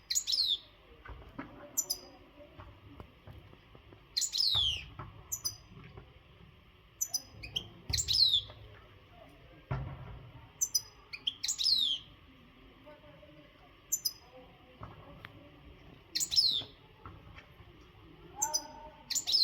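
European goldfinch in breeding condition singing in short bursts every few seconds, each burst of quick high notes that fall sharply in pitch. A few dull low thumps sound between the bursts.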